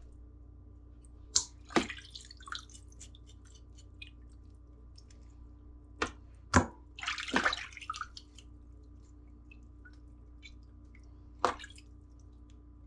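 Raw chicken being washed in water: a few sharp splashes, drips and knocks as the pieces are handled, with a busier cluster about seven seconds in, over a steady low hum.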